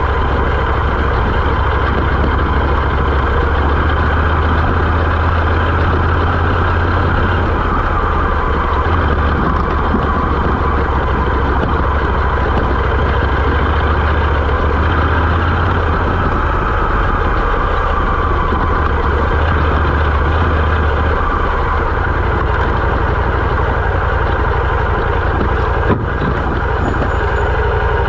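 Moto Morini X-Cape 650's parallel-twin engine running steadily as the motorcycle is ridden along a dirt forest road, with a loud, continuous rushing noise over the low engine drone.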